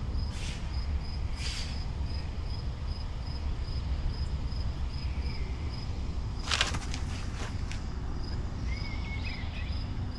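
An insect chirping steadily, about two or three short high chirps a second, over a low steady rumble. A few brief scraping or rustling bursts come through, the strongest about six and a half seconds in, and a short bird call sounds near the end.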